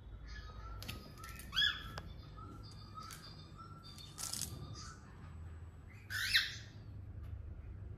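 Cockatiels calling: two loud, short chirps, about a second and a half in and again about six seconds in, with a harsher call around four seconds and softer short whistles and chirps in between.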